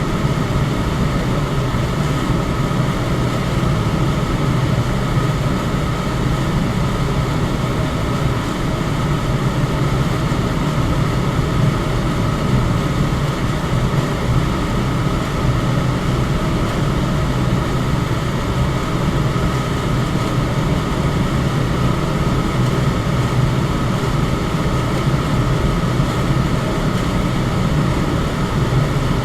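Electric fan running steadily: an even rush of air over a low hum, with a faint steady tone higher up.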